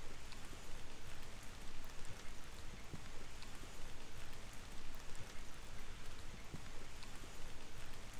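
Steady light rain falling on wet pavement, puddles and garden foliage, with scattered sharp ticks of single drops.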